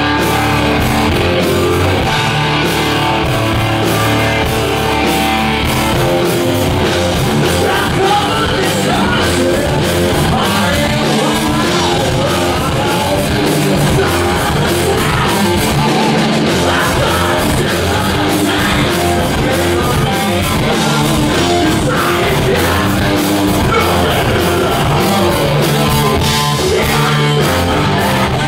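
Live heavy rock band playing loud, with distorted electric guitars over drums. Held chords give way to a choppier riff about six seconds in.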